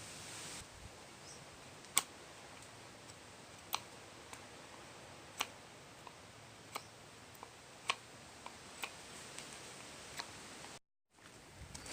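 Faint, sharp ticks or light taps at irregular intervals, roughly one every second or so, over a steady low hiss, with a brief cut-out near the end.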